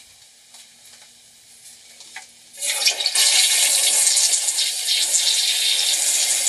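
Toilet flushing a bowl loaded with food scraps: a few faint clicks, then about two and a half seconds in a sudden loud rush of water starts and keeps going.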